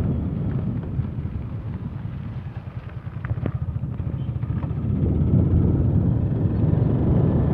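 Motorcycle engine running while riding, with wind buffeting the microphone. It eases off about two seconds in, then grows louder again from about halfway.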